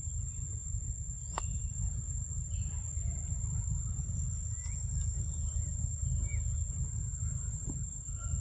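Outdoor forest ambience dominated by a steady low rumble, with a thin, steady high-pitched tone running throughout. A few faint short chirps come and go, and a sharp click sounds about a second and a half in.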